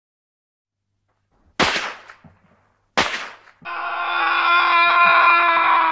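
Two gunshot sound effects about a second and a half apart, each a sharp bang that dies away quickly, then a long cry held at a steady pitch for nearly three seconds that cuts off abruptly.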